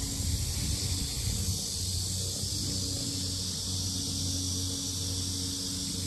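A chorus of cicadas droning steadily and loudly, an unbroken high, hissing buzz. A low steady hum runs underneath.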